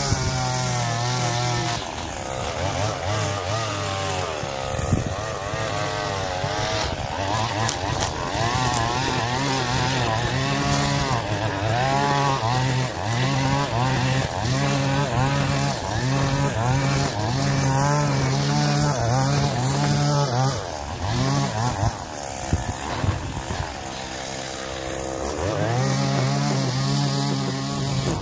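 Stihl petrol string trimmer cutting grass, its engine revving up and down over and over as the throttle is worked. Near the end it eases off toward idle for a few seconds, then revs up again.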